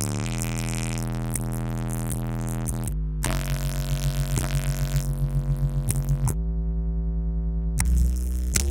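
Bass-heavy hip-hop track played loud through large car-audio subwoofers inside a truck cab, with long deep bass notes and a rhythmic pulse. For a stretch of about a second and a half near the end, only the deep bass plays.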